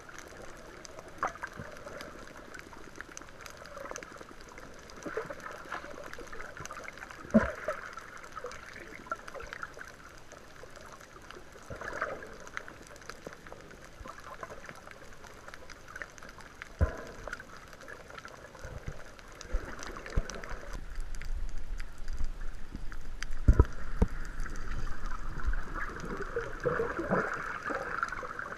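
Water moving and sloshing, with scattered sharp knocks and a louder stretch of low rumbling and knocks about two-thirds of the way through.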